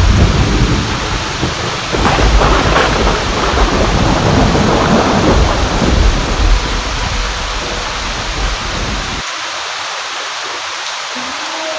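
Steady heavy rain with rolling thunder, and a sharper thunderclap about two seconds in. The deep rumble cuts off suddenly about nine seconds in, leaving the rain alone.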